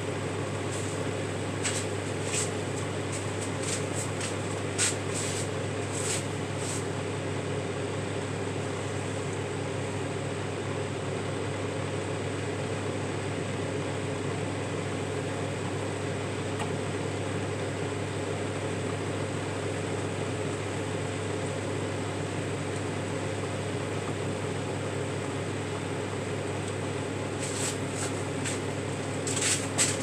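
Microwave oven running with a steady low hum and fan noise, with a few faint clicks in the first several seconds and again near the end.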